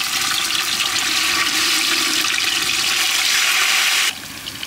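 Carp steaks sizzling in hot oil in a steel pot: a loud, steady hiss that starts suddenly as a piece goes into the oil and cuts off about four seconds in.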